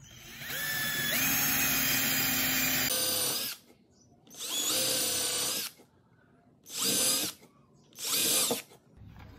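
FortG cordless drill/driver boring a pilot hole in a wooden board with a twist bit. The motor whine climbs as it spins up and runs for about three seconds, then the trigger is squeezed in three shorter bursts.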